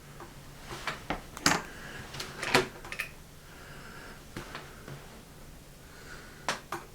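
Plastic board-game miniatures and their packaging being handled and set down on a table: a run of irregular sharp clicks and taps, the loudest about one and a half and two and a half seconds in, with light rustling between them.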